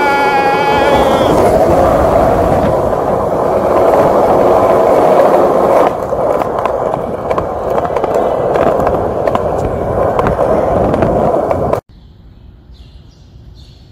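Wheels rolling over concrete pavement: a loud, steady rolling noise with scattered ticks, which breaks off at a cut about six seconds in, carries on, and then drops away suddenly to a quiet background about twelve seconds in.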